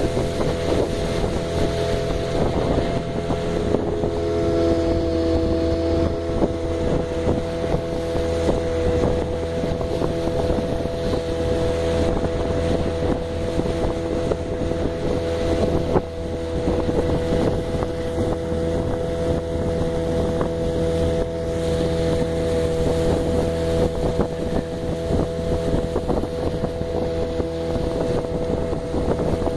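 Engine of a small metal motorboat running steadily under way, a constant hum, with wind buffeting the microphone.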